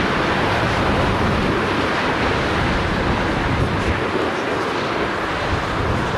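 Airbus A330 airliner's jet engines running at approach power as it descends to land: a steady rushing noise with no sudden events.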